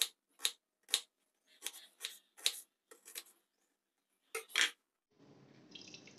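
Kitchen knife chopping potato on a wooden chopping board: a run of sharp chops, about two a second, with a short pause before the last two. Near the end a faint steady hiss follows.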